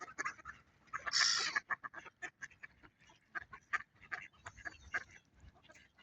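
A flock of mallard ducks quacking and calling while they feed, with many short, quick calls and one louder call about a second in.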